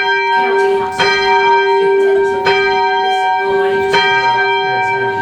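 A single church bell, the second of a ring of eight, heard from the ringing chamber beneath it. It is rung by rope and struck three times, about a second and a half apart, each stroke ringing on into the next.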